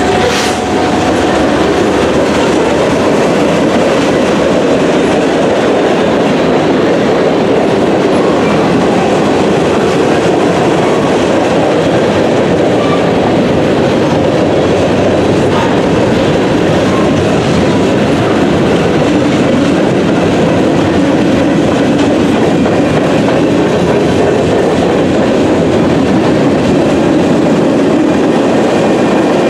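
Freight cars of a manifest train rolling past at track speed: a steady, loud rumble and rattle of steel wheels on the rail that keeps on without a break.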